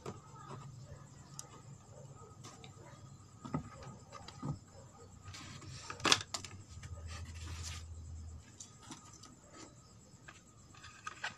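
Cardboard pieces being pulled out of a cardboard box model of a computer case: scattered rustles, scrapes and light knocks, the sharpest knock about six seconds in.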